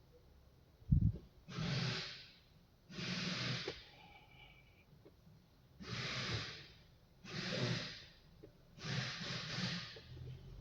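A person breathing close to the microphone: about six audible breaths, evenly spaced. There is a single low thump about a second in.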